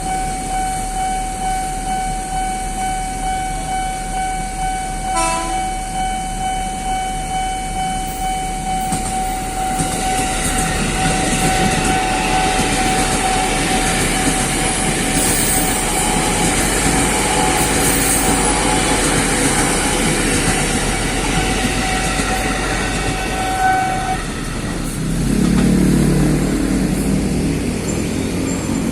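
Level-crossing warning alarm ringing on one steady tone while a KRL commuter electric train passes with rumble and wheel clatter. The alarm cuts off near the end, and road vehicle engines rumble as traffic moves off.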